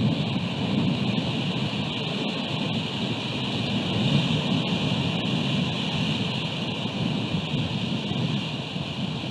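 Steady wind, rain and ocean-surf noise on an exposed outdoor camera microphone: a low rumble with a hiss above it, and a few faint ticks scattered through.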